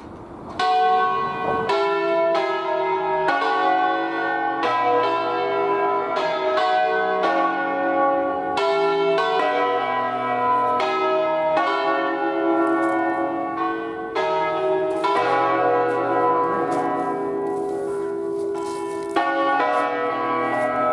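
A five-bell church peal of bronze bells in B, cast by the Barigozzi foundry of Milan, rung by rope on the Ambrosian system. The bells swing full-circle and strike one after another in quick, overlapping succession, each stroke ringing on into the next. The peal grows loud about half a second in.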